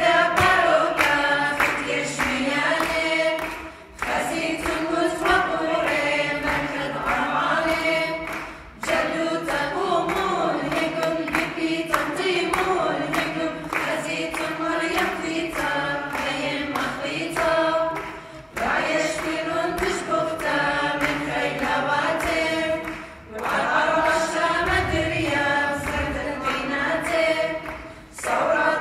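Small mixed choir of men and women singing a hymn of the Assyrian Church of the East a cappella, in phrases broken by brief pauses for breath.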